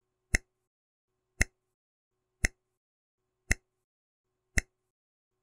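Countdown timer sound effect: sharp ticks, about one a second, five in all, with silence between them.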